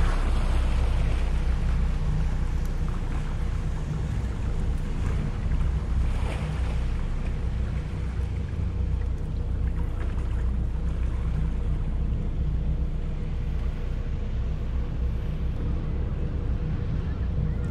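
Twin Volvo Penta inboard diesel engines of a Princess 45 motor yacht running at low revs during docking manoeuvres, a steady low rumble.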